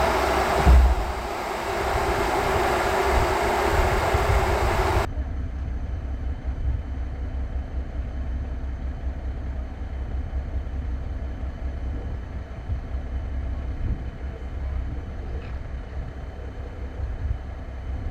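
A heavy engine running under gusty wind noise, cut off abruptly about five seconds in. After that, wind buffets the microphone with a low, uneven rumble.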